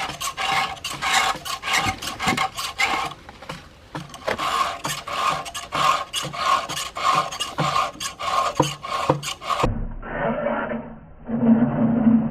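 Rhythmic rasping strokes, about two a second, like a file or hand saw worked back and forth. Near the end the sound cuts abruptly to a duller, muffled one.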